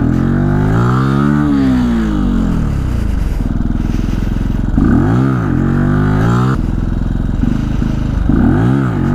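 Benelli TNT 125's small single-cylinder engine running and being revved up and back down several times, with one longer rev about a second in and quicker blips around five seconds in and near the end, steady running in between.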